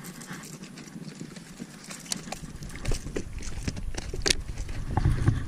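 Scattered knocks and clicks of handling aboard a bass boat while a hooked bass is being fought, with a low rumble building over the second half.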